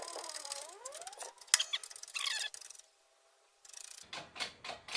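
A bearing press pushing a bearing off a differential shaft through a bearing puller, squeaking and creaking in wavering pitches. There is a sharp crack about a second and a half in as the bearing lets go, then more squeaks, and a run of light clicks near the end.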